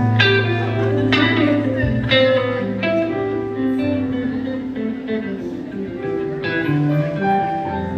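Band playing an instrumental passage: strummed guitar chords over sustained low notes. The chords are struck about once a second for the first few seconds, then again near the end.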